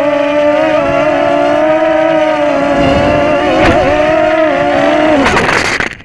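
Walkera QR Ladybird micro quadcopter's four motors and propellers running, heard from on board as a loud, steady whine that wobbles slightly in pitch, with a single click about three and a half seconds in. Near the end the motors wind down and stop with a short rasp.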